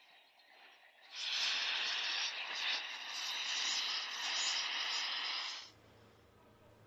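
A steady, loud hiss of spraying liquid or rushing air that starts about a second in, runs for about four and a half seconds and stops abruptly; a faint low hum is left after it.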